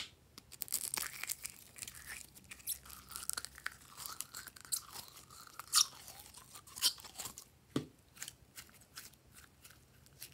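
Purple glitter slime squelching out of a plastic bottle and being squished by hand, with many irregular wet clicks, pops and crackles and a wavering squelch through the middle.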